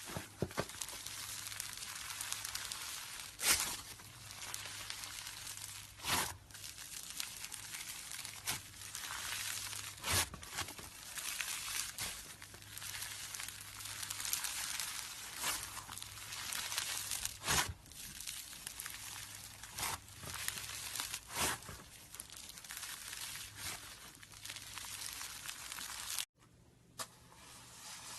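Slime being worked by hand: a continuous sticky crackling, with louder snaps every few seconds. It cuts off abruptly near the end.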